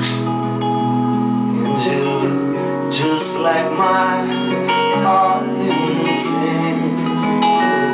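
Live band playing a slow ballad, with strummed acoustic guitar and held notes carrying an instrumental passage near the song's end.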